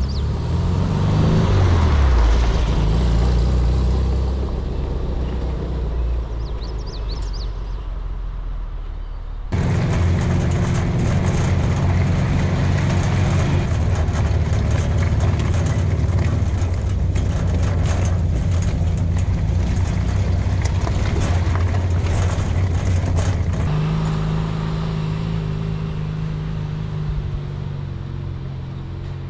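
A vintage VW split-window bus's air-cooled flat-four engine running under load while driving up a dirt trail, with frequent short knocks and rattles over the rough ground. The whole sound changes abruptly a little over nine seconds in, and about three-quarters of the way through the engine note steps up.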